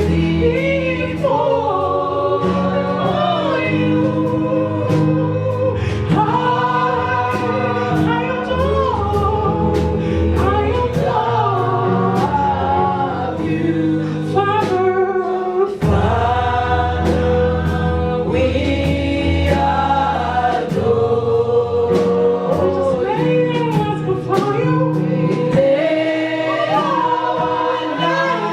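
A group of voices singing a slow gospel worship song together, over held keyboard and bass notes and a steady light drum beat.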